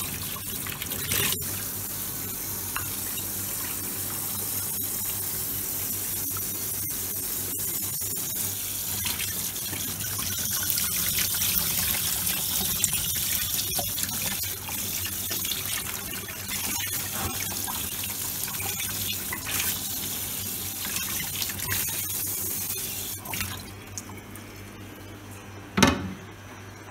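Tap water running and splashing onto a magnesium plate in a plastic basin while it is washed down during photoengraving development. The flow stops about three-quarters of the way through, and a brief loud knock follows shortly before the end.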